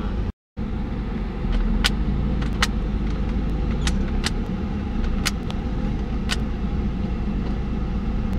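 A car's engine and road rumble heard inside the cabin as it drives, getting louder about a second and a half in as it pulls on, with scattered sharp clicks. The sound cuts out briefly near the start.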